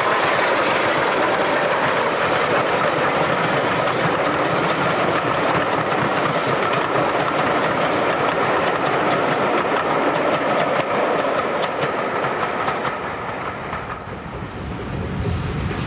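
Steam-hauled passenger train passing close by: the locomotive goes past and then the coaches roll by, wheels clattering over rail joints in a steady clickety-clack. Near the end the sound drops away and comes back lower and heavier as the train is heard from further off.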